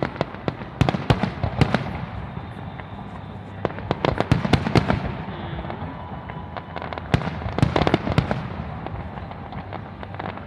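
Fireworks display: aerial shells bursting with rapid clusters of sharp bangs and crackles. The bangs come in three busy bursts, about a second in, around four seconds in and around seven to eight seconds in.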